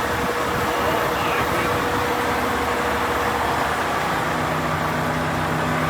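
Diesel engine of farm machinery running steadily with a constant hum; a lower, deeper engine note joins about four seconds in.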